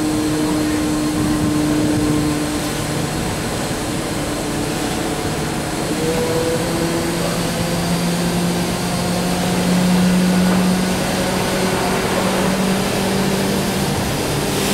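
Steady engine drone from the passenger tender holding alongside the ship, its hum slowly rising and falling in pitch, over a wash of general noise.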